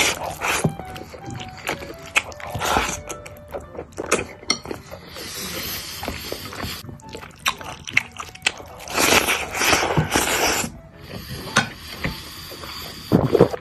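Chewing of a big mouthful of Taiwanese braised pork rice (rice, pork, sausage), with wet mouth sounds, smacking and clicks as it is shovelled in with chopsticks, over background music.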